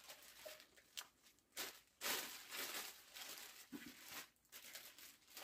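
Faint rustling and handling noise from a new strapback cap and its paper hang tag being turned over in the hands, with a few soft clicks and a slightly longer rustle about two seconds in.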